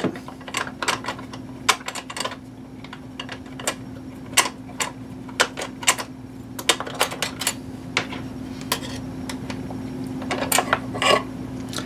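Irregular small metal clicks and taps as two screws are backed out of a Cuisinart stand mixer's hinge mechanism with a 3mm Allen wrench and the loosened parts are handled. A steady low hum runs underneath.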